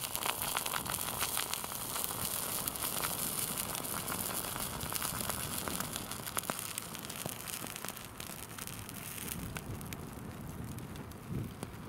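Crackling and sizzling from a small campfire and a tin of birch oil being heated over its embers to boil off the volatiles: a dense spatter of tiny crackles over a hiss, thinning out after about eight seconds.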